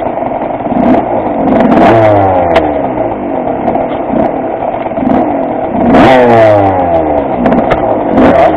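Clapped-out Honda motorcycle engine running and revved up twice, about two and six seconds in, then dropping back.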